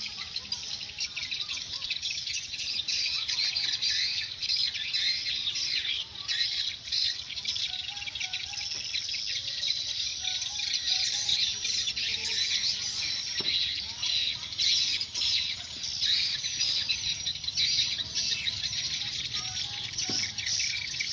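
Dense, continuous twittering of many swiftlets: rapid, overlapping high chirps, a sign of birds responding around a swiftlet house.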